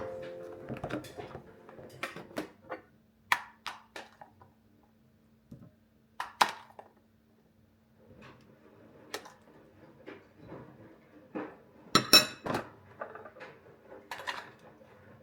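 Dishes and cutlery being handled: scattered clinks and knocks at irregular intervals, with a cluster of louder clinks about twelve seconds in, over a faint steady hum.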